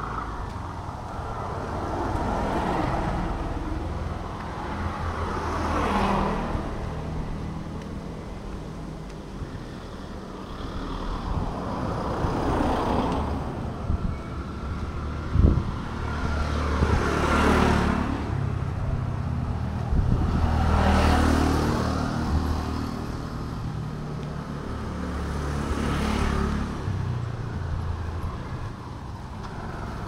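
Road traffic: vehicles passing one after another, about five passes that swell and fade over a steady low engine rumble. A single sharp knock comes about halfway through.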